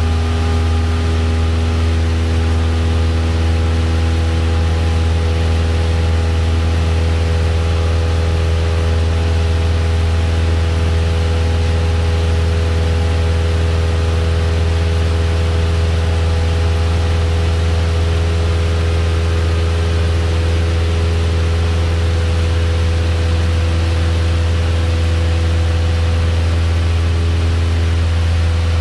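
Light single-engine airplane's piston engine and propeller running at takeoff power, a loud steady drone with a constant pitch, heard from inside the cockpit through the takeoff roll, liftoff and climb.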